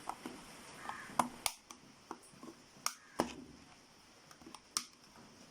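Sharp plastic clicks and snaps, about five spread over the few seconds, as a Sony camera charger's clipped plastic casing is forced open.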